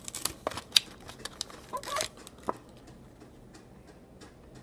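Plastic blister packaging crackling and clicking as a die-cast toy car is worked out of its card. There are a few sharp clicks in the first two and a half seconds, then only faint small ticks.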